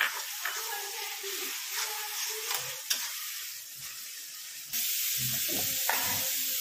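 Chopped tomatoes frying in hot mustard oil in a metal kadai, sizzling steadily, with a metal ladle clicking and scraping against the pan as the mix is stirred. About three quarters of the way through, the sizzle jumps abruptly louder, with a few low handling thumps.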